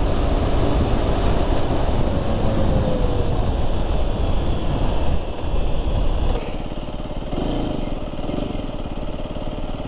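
Aprilia RS 125's single-cylinder four-stroke engine running at road speed, its note falling as the bike slows, then settling at idle at a standstill from about six seconds in.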